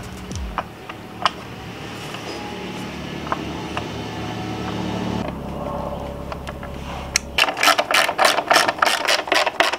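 Hand ratchet clicking in quick runs of about five clicks a second, starting about seven seconds in, as a skid-plate fastener is driven home. Before that there is only a low steady hum.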